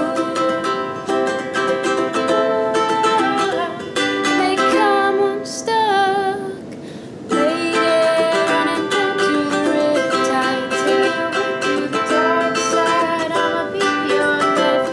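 Ukulele strummed in chords, with a woman singing along. Just past the middle the strumming stops for about a second while a sung note wavers and fades, then the strumming picks up again.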